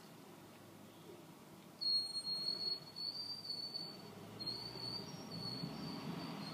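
A thin, high whistle that starts about two seconds in and is held in several broken stretches, each close to a second long, at a nearly steady pitch.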